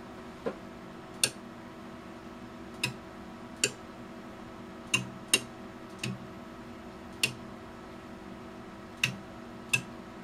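Relays in an HP 59306A relay actuator clicking as they switch under remote GPIB control, about ten sharp clicks at uneven intervals over a faint steady hum. The switching shows that the repaired GPIB controller is driving the unit.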